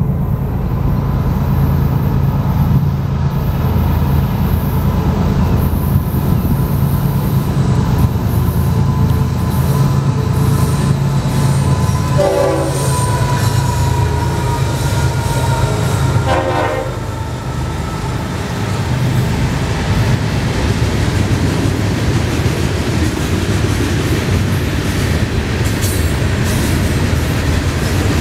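A freight train passing close by. At first the low drone of its GE ES44C4 diesel locomotives dominates. About 17 seconds in, it gives way to the steady rumble and clickety-clack of freight cars rolling past.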